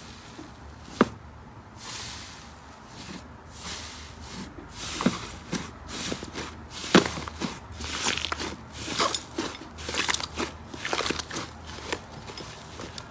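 Blue non-sticky 'tofu dregs' slime being pressed and kneaded by hand, giving a string of squishy crackles and pops. The crackling grows denser about a third of the way in, with a sharp pop near the start and another midway.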